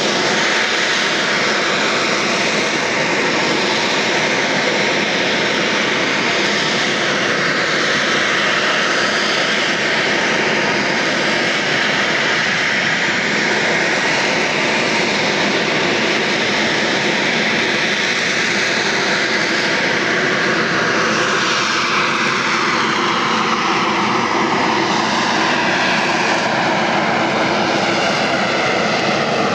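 BAe Sea Harrier FA2's Rolls-Royce Pegasus turbofan running loudly in a flying display, a continuous jet roar. Over the last several seconds its tones fall in pitch.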